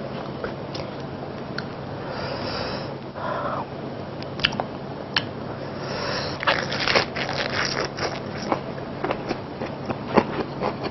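Close-miked eating of a lettuce wrap with sliced pork: leaves rustling as the wrap is handled, then many crisp crunches and chewing sounds from about six seconds in.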